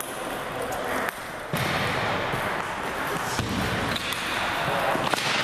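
Table tennis ball being hit back and forth in a rally, clicking off the paddles and bouncing on the table, with a few sharp clicks in the second half. Steady background noise of the hall underneath.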